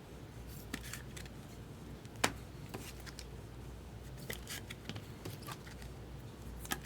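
Baseball trading cards being handled and flipped through, with scattered light clicks and ticks and one sharper snap about two seconds in.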